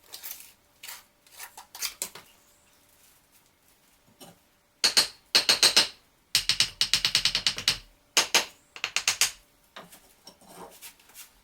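Bricklayer's trowel working cement mortar: scattered clicks and taps, then three runs of rapid rasping scrapes in the middle, each about a second long.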